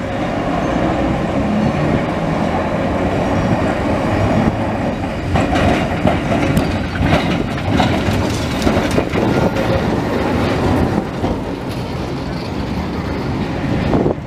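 1907 S-type heritage tram rolling past on steel rails, its wheels clattering over the track joints and switches in a run of sharp clacks loudest about halfway through as it passes close by.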